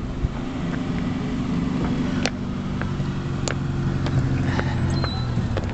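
A car engine running at low revs with a slight rise in pitch, and a few sharp clicks and knocks over it.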